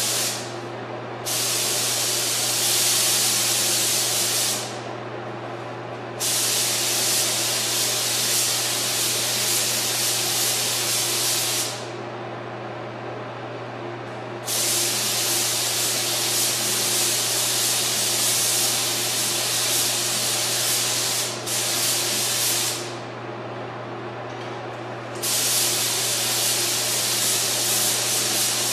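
Compressed-air paint spray gun hissing in on-off bursts of a few seconds each as the trigger is pulled and released, the longest about seven seconds, over a steady low hum.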